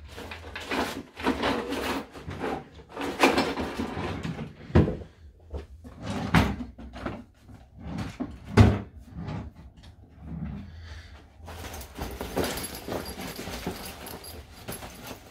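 Drawers being pulled open and pushed shut with several sharp knocks, and loose things rattled about as someone rummages through them. Near the end, a steadier rustle of rummaging in a fabric backpack.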